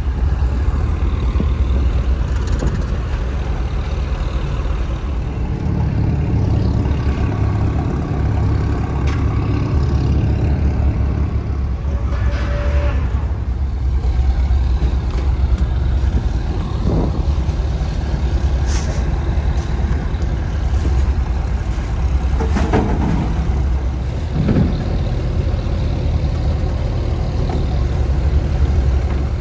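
Fishing boat diesel engines running steadily at idle, a constant low rumble, with occasional knocks and clatter as fish crates are handled.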